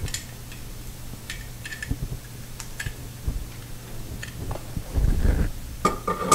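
Light clicks and taps of hands handling a chrome bathroom-sink pop-up drain assembly, over a low steady hum. About five seconds in comes louder rummaging in the sink cabinet, then a brief squeak and a knock.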